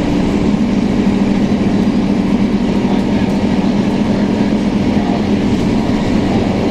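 Scania K230UB city bus heard from inside the passenger cabin: its Scania DC9 diesel engine runs with a steady drone over road and cabin noise.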